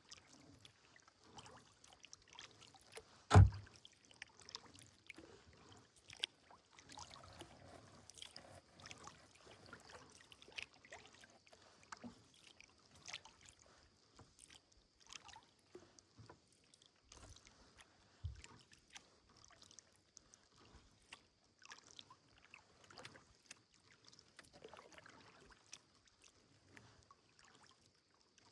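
Kayak paddling: the paddle blades dip and drip with small splashes and clicks, with one loud sharp knock a little over three seconds in and a smaller thump about eighteen seconds in.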